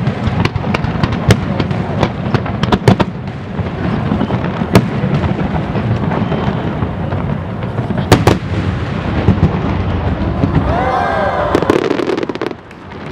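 Aerial fireworks shells bursting one after another, sharp reports over a continuous crackle and low rumble, with the volume easing off about twelve seconds in.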